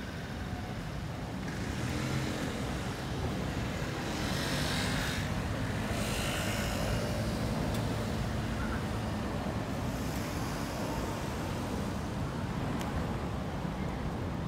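Road traffic on a city street: a steady low rumble of engines and tyres, with a vehicle passing close by about four to seven seconds in.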